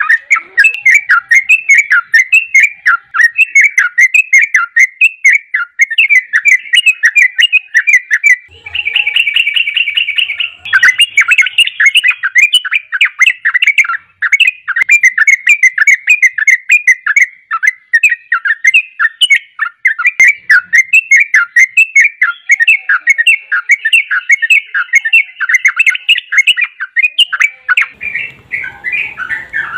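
Yellow-vented bulbul (trucukan) singing a fast, unbroken run of bubbling chirped notes, about four or five a second. About nine seconds in, a buzzing trill lasting some two seconds breaks the run.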